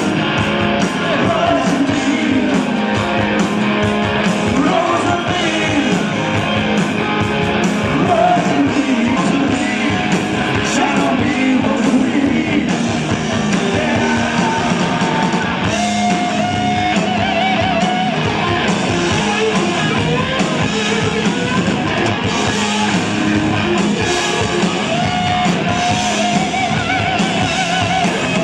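Live rock band playing loud through amplifiers, with electric guitars and a drum kit.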